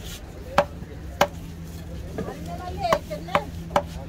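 Heavy long-bladed knife chopping through a mahi mahi fillet into a wooden log chopping block: five sharp knocks, two spaced out in the first second and a half, then three in quick succession near the end.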